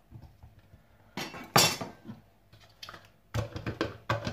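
Kitchen knife knocking in a food chopper's bowl of cut tomato and pepper and being laid on the worktop, with a pair of sharp knocks about a second and a half in. In the last second the chopper's plastic lid clatters as it is fitted onto the bowl.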